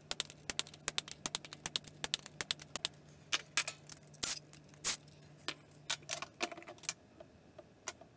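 Metal hand tools clicking and clinking: a run of quick, irregular sharp clicks that thins out in the last second or two, over a faint low hum that stops about six seconds in.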